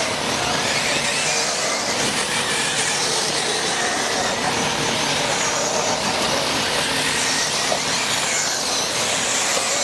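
A pack of electric 1/10-scale RC buggies racing on a dirt track: a steady mass of motor whine and tyre noise, with whines rising and falling as the cars accelerate and pass.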